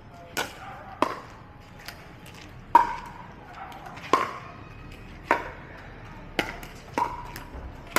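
Pickleball rally: hard paddles striking the plastic ball back and forth, a sharp pock with a short ring about once a second, some eight hits in all.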